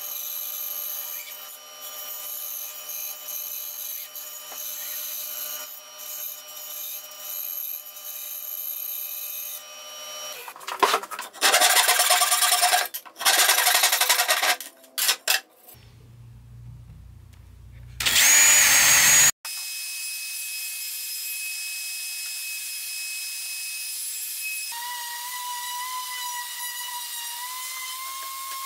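Bandsaw running and cutting a wavy line through a walnut board for about the first ten seconds. Then a handsaw cuts through wood in several loud rasping stretches, followed by a short loud burst from another tool. For the last nine seconds or so an orbital sander runs steadily.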